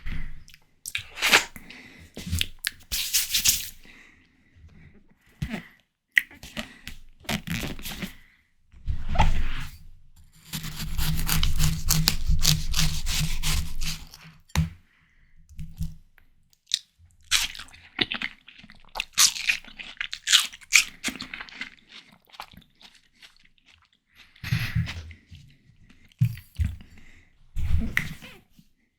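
Close-miked biting and chewing of ripe, juicy watermelon: crisp, wet crunches in irregular bursts with short pauses between bites, and a longer run of chewing about ten seconds in.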